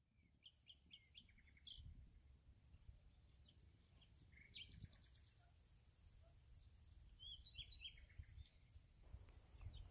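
Faint meadow ambience: scattered short bird chirps in a few small clusters over a steady high-pitched insect whine, with a soft low rumble underneath.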